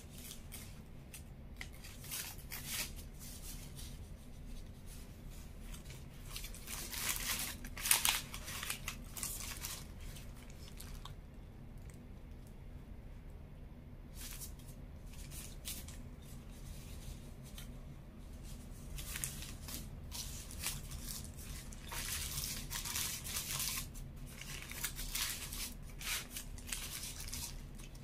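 Close-up eating sounds of a crispy chicken burger: crunchy bites and chewing mixed with its paper wrapper crinkling, in clusters of crackling with quieter stretches between.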